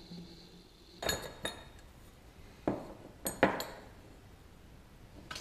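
Lengths of 15 mm copper pipe knocking and clinking against each other and the wooden workbench as they are handled: about five sharp knocks, each with a short metallic ring.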